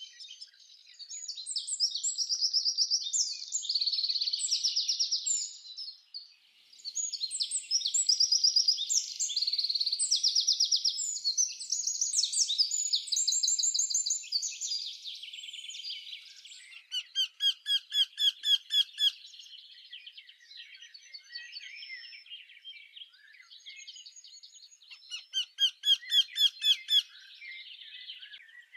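Small birds singing: a dense run of rapid, high twittering and chirping, then, from about halfway, quick trills of evenly repeated notes that come twice.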